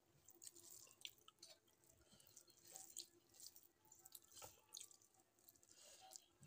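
Fingers mashing and mixing boiled rice with lentil dal on a metal plate: faint, wet, sticky clicks and squishes at irregular intervals.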